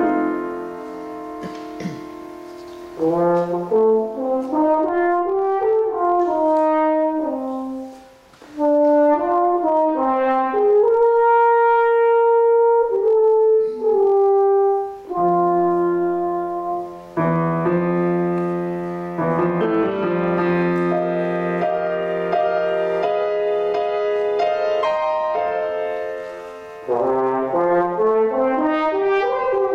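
French horn playing a slow, lyrical melody of long held notes over a piano accompaniment. The piano plays alone for the first few seconds before the horn comes in.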